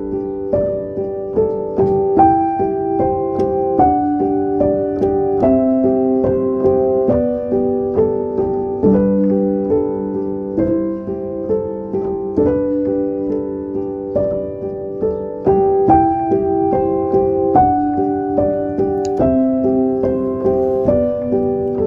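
Background music: soft solo piano playing a gentle melody of single notes over changing chords.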